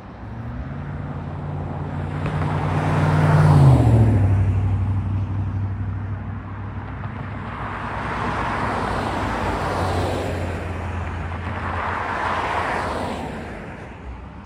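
Road traffic passing on a highway: a car goes by close about four seconds in, its hum dropping in pitch as it passes, followed by two more vehicles passing later on.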